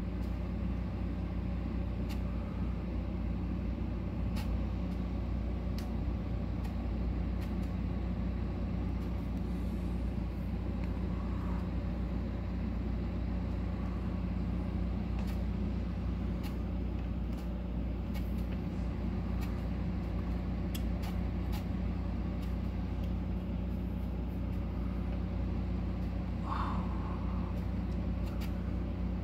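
A steady low mechanical hum, with a few faint ticks scattered through it.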